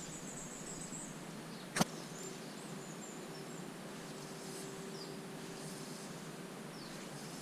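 Quiet outdoor ambience with a few short, high bird chirps, a single sharp click about two seconds in, and a faint steady hum through the middle.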